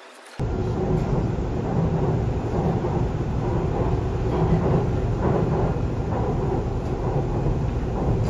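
Subway train running, heard from inside the car: a steady low rumble of wheels and running gear that cuts in abruptly about half a second in.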